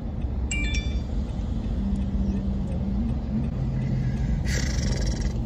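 Car engine idling, heard from inside the cabin: a steady low rumble with a hum that drops in pitch about three seconds in. There is a short high chirp about half a second in, and a brief rustle near the end.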